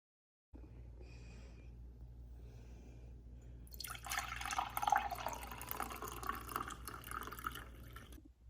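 Running water, starting about three and a half seconds in and stopping shortly before the end, over a faint low hum.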